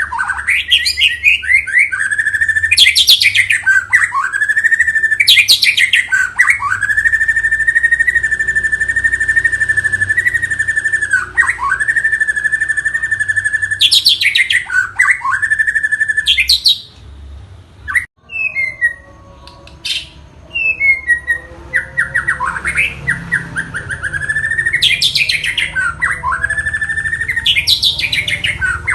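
White-rumped shama (murai batu) singing hard: long rapid trills held at one pitch for several seconds, broken by quick whistles sweeping up and down. About two-thirds of the way through the trilling pauses for a few short scattered notes, then starts again.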